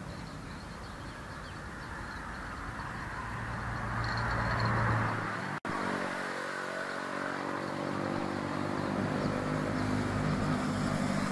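A motor vehicle's engine running, growing louder toward the middle, then a steady pitched hum after a brief break about halfway through.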